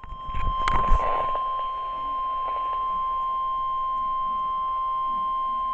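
NOAA Weather Radio 1050 Hz warning alarm tone: one steady, unbroken high beep played through a radio speaker, the signal that precedes a broadcast warning. Brief crackling noise sounds under it during the first second or so.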